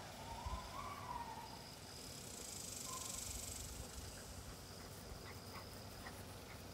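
Faint outdoor insect buzz: a high, hissing drone that swells and fades around the middle, with a thin high trill coming and going. A few short high calls sound near the start.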